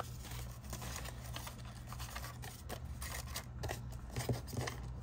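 Paper dollar bills rustling and crinkling as they are handled and laid into a plastic cash tray, with scattered light ticks and taps.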